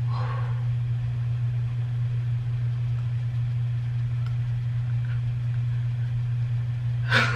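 Steady low hum at one unchanging pitch, like a motor or electrical hum in the room.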